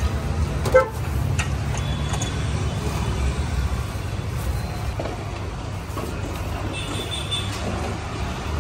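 Road traffic noise: a steady low rumble of passing vehicles, with one brief sharp sound about a second in.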